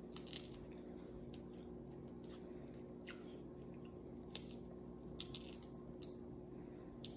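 Cooked shrimp being peeled by hand: faint, scattered crackles and clicks of shell breaking and pulling away.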